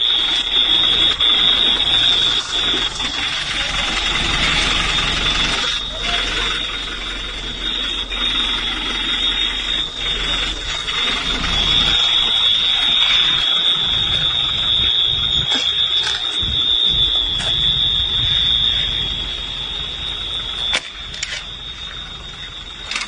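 An electronic alarm sounding one continuous high-pitched tone, over noisy background commotion with a few sharp clicks late on.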